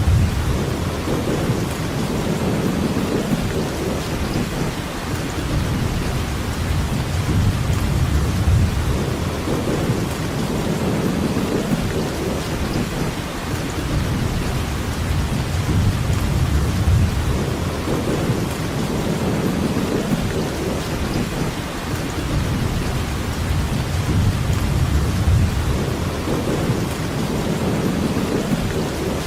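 Steady rain with low rolling thunder rumbling underneath, swelling and fading every few seconds.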